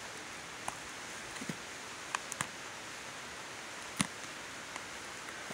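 Packing tape being cut with a knife and pulled off a stack of taped-together phone books: a few short sharp clicks and crackles of tape and paper over a steady hiss, the loudest about four seconds in.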